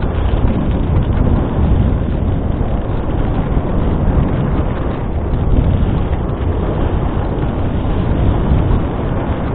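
Steady noise of a dog sled running over snow behind a four-dog team, with wind on the microphone.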